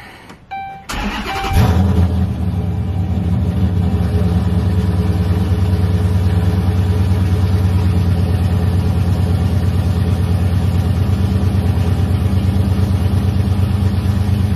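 Two short dash chimes, then the starter cranks the Dodge Charger R/T's 5.7-litre HEMI V8, fitted with an aftermarket camshaft. It catches about a second and a half in and settles into a steady, pulsing idle. This is the first start after an oil change.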